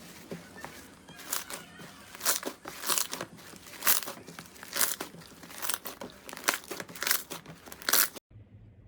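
Crunchy slime being pressed and squeezed by hand, giving a sharp crackling crunch roughly once a second. The sound cuts off suddenly near the end.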